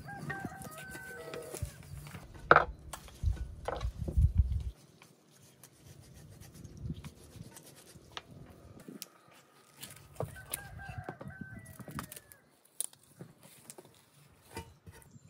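A rooster crowing twice, each crow about a second and a half long, once at the start and again about ten seconds in. Two sharp knocks come a few seconds in, over a low rumble that stops after about five seconds.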